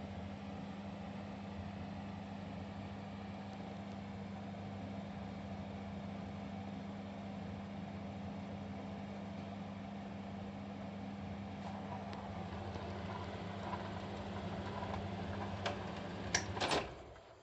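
Tonan TF-25 ventilation fan running with a steady electric-motor hum and airflow. Near the end come a few sharp clicks, and then the running sound falls away.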